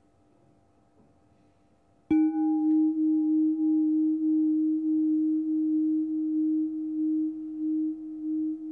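Near silence, then a singing bowl struck once about two seconds in, ringing on in a long low tone with a slight pulsing warble while its higher overtones fade sooner. It is sounded to close the breathing practice.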